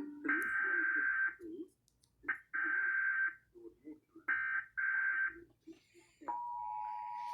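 Emergency Alert System SAME header: three one-second bursts of screechy digital data tones, about a second apart. About six seconds in, the steady two-tone EAS attention signal starts.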